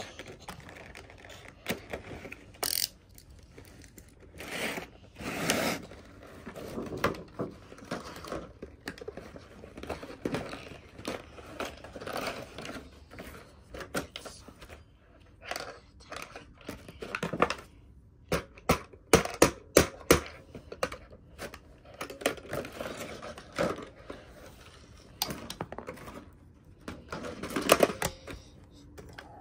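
Clear plastic packaging being cut with a utility knife and pulled apart, crackling and rustling, with many scattered sharp plastic clicks and knocks as a plastic whack-a-mole toy is handled. The loudest quick run of clicks comes about two-thirds of the way through, and near the end hands press down the toy's moles.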